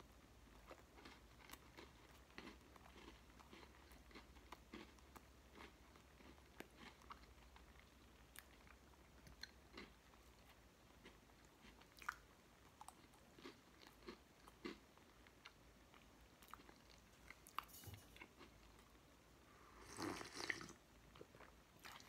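Faint chewing by a person eating close to the microphone: scattered soft mouth clicks and smacks, with a louder brief noise about twenty seconds in.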